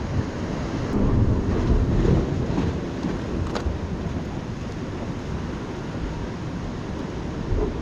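Wind buffeting the microphone over the wash of ocean surf, with gusts rising and falling and a faint click about three and a half seconds in.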